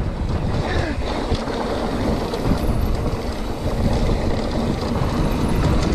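Wind rushing over the microphone and mountain bike tyres rolling over bare rock on a descent, a steady rumbling noise with a few light clicks from the bike.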